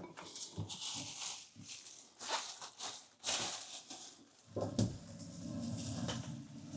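Irregular rustling and scuffing handling noises as the removed toilet is moved out of the way, with a low, steady rumble over the last couple of seconds.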